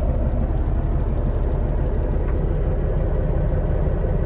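Caterpillar C15 diesel engine of a Peterbilt 379 semi truck idling steadily with a low rumble, heard from inside the cab.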